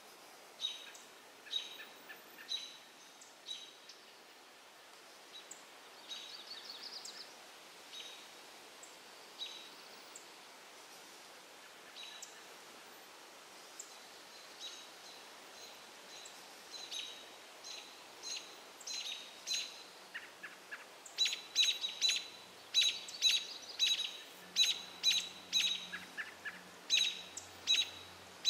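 American robins giving sharp, short alarm calls, scolding a great gray owl perched in their territory. The calls come singly and spaced out at first, then in a quicker, louder run over the last third.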